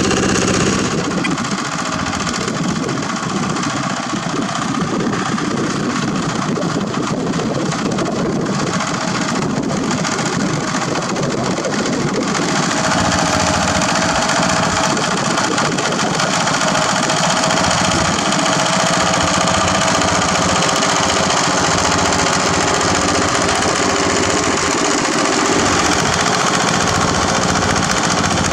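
Yanmar TF105 two-wheel walking tractor's single-cylinder diesel engine running steadily under load while its rotary tiller churns the soil. The tone shifts slightly about twelve seconds in.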